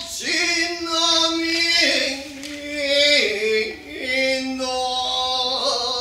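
A man singing Awaji danjiri-uta, a chanted ballad style drawn from jōruri, solo and unaccompanied. He holds long drawn-out notes that step downward in pitch, then climbs higher again near the end.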